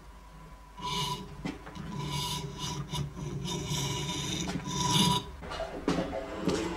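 Thin spindlewood stringing strips rasping as they are drawn through a toothed steel die, which trues them smooth, square and uniform. It comes as a run of scraping strokes that starts about a second in and stops about five seconds in.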